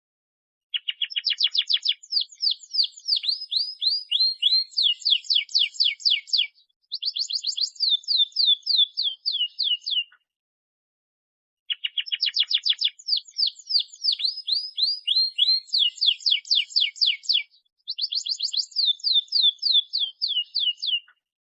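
Domestic canary singing a long rolling song: fast trills of quick falling notes, high-pitched, in two bouts of about nine seconds each separated by a short pause, the same sequence of phrases both times.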